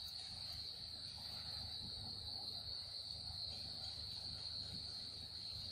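Crickets trilling in one steady, high, unbroken tone.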